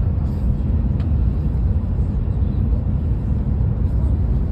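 Steady low rumble inside the passenger car of the Whoosh high-speed train running at its top speed of 350 km/h.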